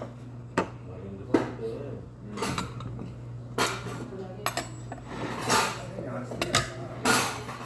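Tableware clinking: a metal spoon and heavy black serving bowls knocking against each other and a metal tray, in a string of separate clinks and knocks about once a second. A steady low hum runs underneath.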